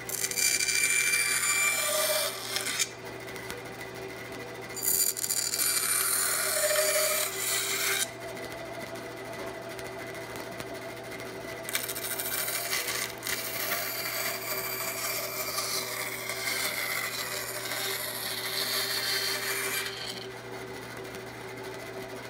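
Bandsaw running with a steady motor hum while its blade cuts through a piece of white cedar in three cuts: one in the first three seconds, one from about five to eight seconds in, and a longer one from about twelve to twenty seconds in.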